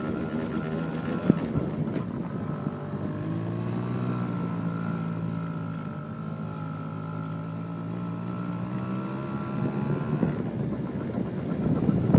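Engine of a child's small quad ATV running steadily at a low, even pitch, fading somewhat in the middle and growing louder again toward the end as it comes close. Wind buffets the microphone near the end.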